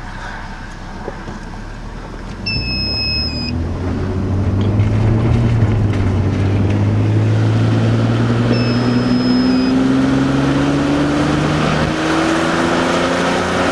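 Car engine pulling hard as the car speeds up, its pitch climbing and then dropping back near the end at a gear change, with tyre and wind noise rising with speed. A short high electronic beep sounds twice, the low-power warning of a device plugged into the car.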